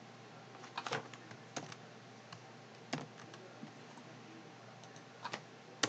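Computer keyboard keys pressed in a few scattered clicks while a number is entered, over a faint low hum.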